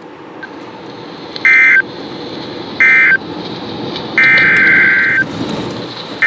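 NOAA Weather Radio SAME digital data bursts over steady hiss: two short, harsh buzzing squawks, then two longer ones about a second each near the end. This is the coded end-of-message and header signal that brackets an emergency alert.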